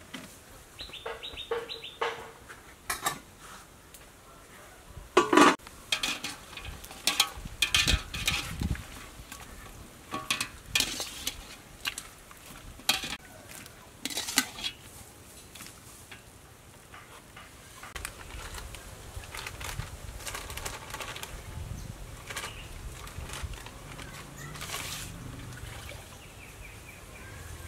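Clinks and knocks of small bowls, a spoon and a plastic basket being handled on a table during food preparation. A quick run of short high chirps sounds near the start.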